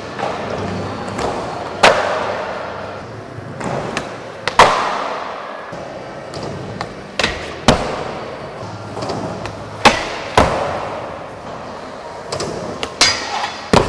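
Skateboard wheels rolling on a wooden skatepark floor, with sharp clacks every couple of seconds, several in pairs about half a second apart, as boards are popped and landed. The clacks echo in a large hall.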